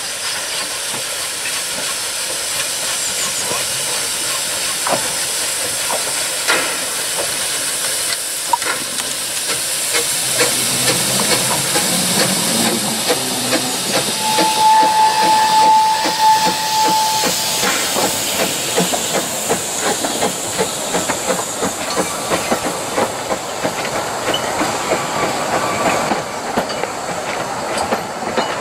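Vale of Rheidol Railway No. 9 (1213), a narrow-gauge 2-6-2 tank steam locomotive, passing with its train, with a steady hiss of steam escaping at the cylinders and its exhaust beats. About halfway, as the engine draws level, a short steady high tone sounds for two or three seconds, then the coaches rattle past.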